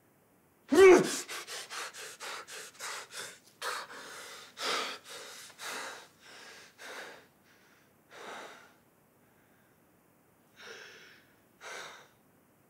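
A man comes to with one loud gasp about a second in. He then pants rapidly, about four breaths a second, and his breathing slows into heavy, spaced breaths, with two last breaths near the end.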